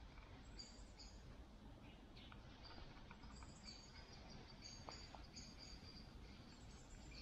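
Near silence: faint, short, high bird chirps now and then over a low steady background hush.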